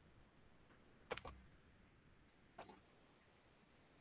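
Near silence broken by faint computer-mouse clicks: a quick pair about a second in and another pair a little past two and a half seconds, as multimeter probe wires are moved in a circuit simulator.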